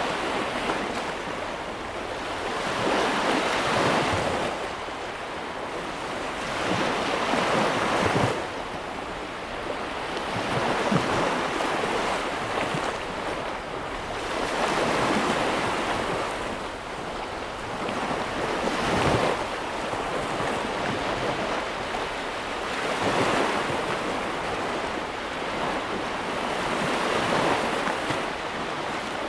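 Ocean waves breaking and washing on the shore, the surf swelling and easing every few seconds, with some wind.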